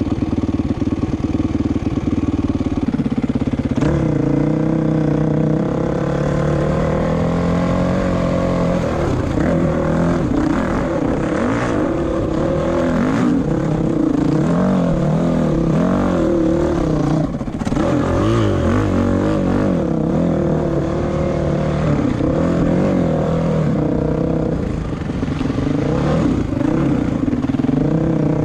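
Honda dirt bike engine running steadily at low revs for the first few seconds, then revving up and down over and over as it climbs rough dirt hill tracks.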